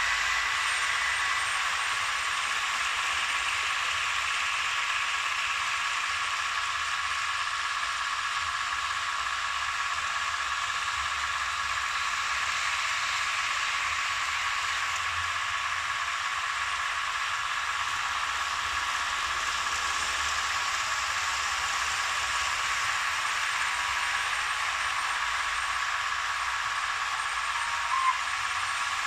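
Märklin H0 model trains running on metal track: a steady hiss of wheels rolling and electric motor whine, with several thin steady tones above it. A brief blip near the end.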